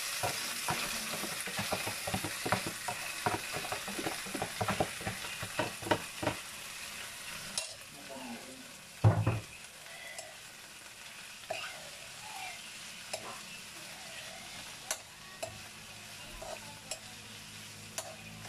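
Beef strips in oyster sauce sizzling in hot oil in a wok, with a metal spoon stirring and scraping against the pan in quick clicks, busiest in the first six seconds. A single loud knock comes about nine seconds in, then the stirring thins to scattered scrapes.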